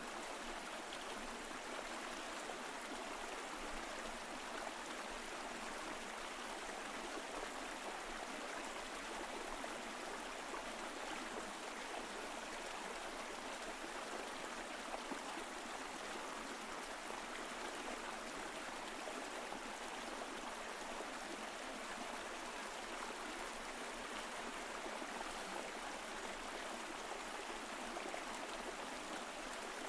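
Small mountain stream flowing over rocks: a steady rush of water with trickling and gurgling, unchanging throughout.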